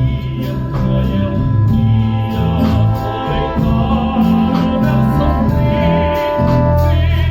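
A cobla, the Catalan wind band of reeds and brass, playing a passage of the song with held melody notes over a moving bass.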